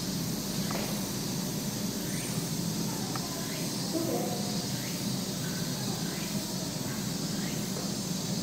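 Steady background hum and hiss, with faint short chirp-like sounds now and then; no distinct event stands out.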